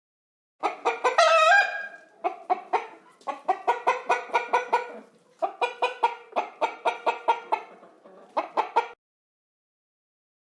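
Chicken clucking: a short drawn-out call near the start, then runs of quick, sharp clucks, about three or four a second, that stop suddenly near the end.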